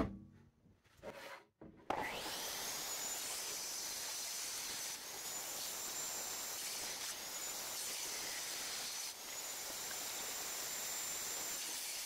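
Table saw switched on about two seconds in, a high whine rising as the motor comes up to speed, then running steadily while it cuts a glued-up wooden block. The sound breaks off briefly three times.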